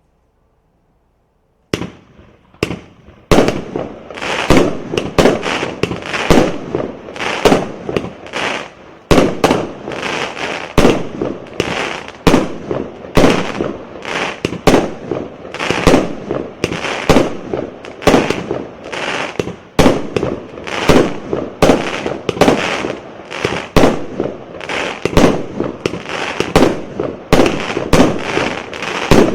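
A 36-shot fireworks cake with 1-inch tubes firing in sequence. After a short silence, sharp reports begin about two seconds in and come one after another, about one or two a second, each trailing off briefly.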